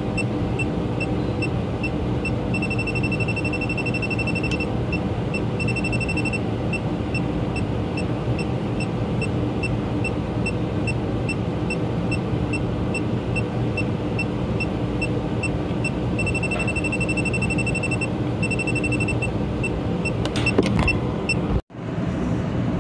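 Electronic refrigerant leak detector beeping slowly, then breaking into rapid beeping four times, for one to two seconds each, as its probe picks up refrigerant leaking at the pressure switch's capillary tube. A steady engine-like hum runs underneath.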